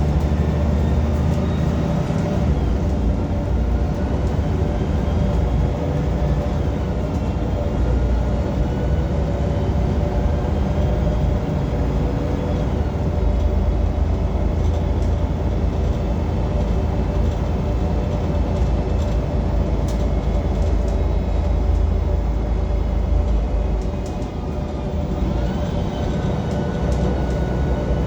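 City bus engine and drivetrain heard from inside the cabin: a loud, steady low rumble, with whining tones that rise and fall as the bus speeds up and slows down.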